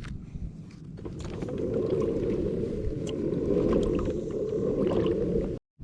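Water rushing along the hull of a fishing kayak under way, building over the first couple of seconds and then holding steady. It cuts off abruptly near the end.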